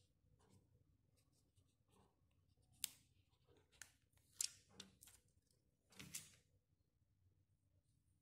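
A smartphone being handled on a table: about half a dozen short, sharp taps and scrapes from fingers and the phone's glass back against the surface, bunched between about three and six seconds in, with near silence around them.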